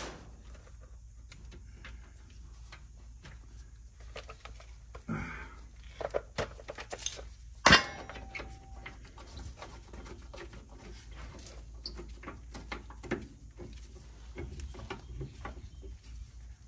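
Bolts being threaded by hand into the lower mount of a new front shock absorber: scattered small metallic clicks and rattles, with one sharp metal clink about eight seconds in that rings briefly.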